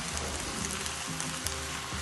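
Food sizzling in a hot pan, a steady crackling hiss, with soft background music underneath.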